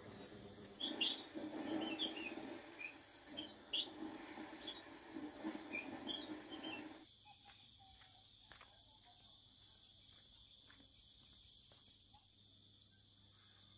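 Insects trilling in a steady high drone. Over the first half come short chirps and irregular knocks and rustling. These stop suddenly after about seven seconds, leaving the insects and a few faint clicks.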